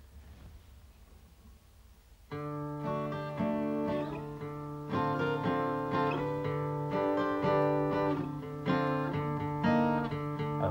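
Steel-string acoustic guitar: after about two seconds of faint low hum, chords start and carry on in a steady rhythm, the opening of a song before the vocal comes in.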